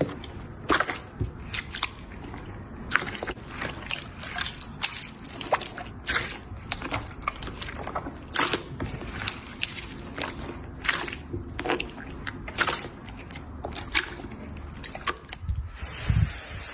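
Slime being squeezed and stretched by hand: irregular wet clicks, crackles and small pops, several a second.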